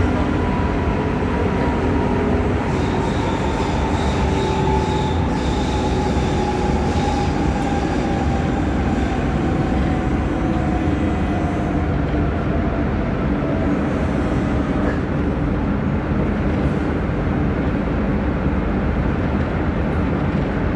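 Duewag B80D light-rail car running on the track, heard from inside the car: a steady loud rumble with a whine that falls slowly in pitch. A faint high wheel squeal sounds from about three to seven seconds in.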